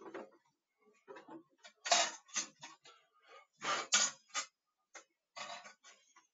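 Clicking and clattering of hard parts being handled, in several short irregular bursts, as a popcorn machine is checked over during setup.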